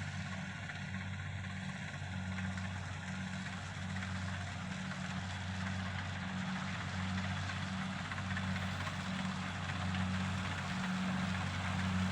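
An engine running steadily at a constant speed, with a steady hiss above its low hum.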